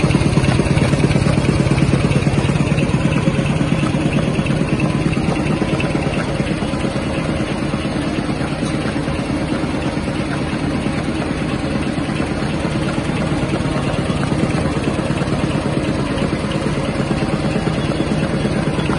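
Z-fold hand towel tissue folding machine running steadily: a continuous fast mechanical clatter over a strong low hum as its rolls fold and stack the paper towels.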